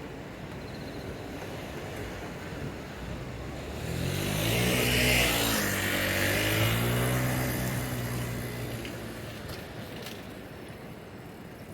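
A vehicle passing close by: it grows louder about four seconds in, and its engine or motor note drops in pitch as it goes past, then fades away.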